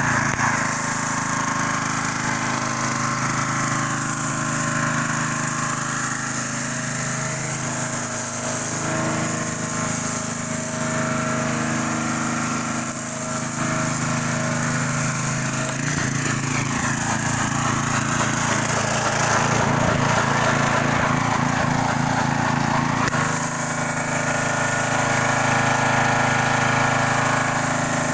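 Pressure washer running steadily: the drone of its motor and pump under the hiss of the spray jet. The sound changes character twice, about halfway through and again a few seconds later.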